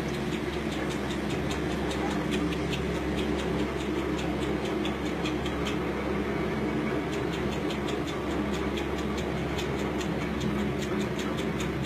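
Roller coaster car climbing a chain lift hill, played through a TV's speakers: a steady low rumble of the lift chain with regular clacking of the anti-rollback ratchet, several clicks a second.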